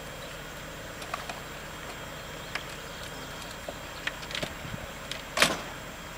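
Scattered light clicks and knocks as a person climbs into and settles in the cabin of a parked Cessna 337 Skymaster, with one sharper, louder knock about five seconds in, over steady outdoor background hiss.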